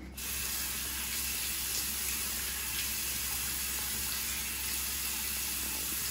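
Water running steadily from a bathroom sink tap, with hands washing under the stream during wudu ablution. It starts abruptly at the opening and holds an even, hissing level throughout.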